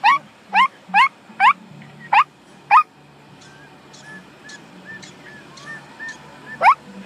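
Prairie dog giving repeated sharp, rising chirp-barks, about two a second for three seconds, then a pause and one more near the end: the alarm call it gives at a person close to its burrow.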